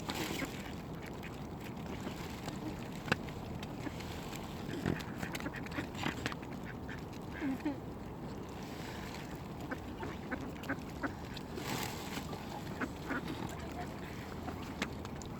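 Mallard ducks quacking at intervals, with short sharp clicks scattered through.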